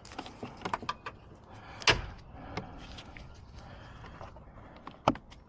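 Car door latch being worked by a newly fitted door handle, as a test that the handle opens the door. It gives a few light clicks, a sharp clunk about two seconds in, and another clunk near the end.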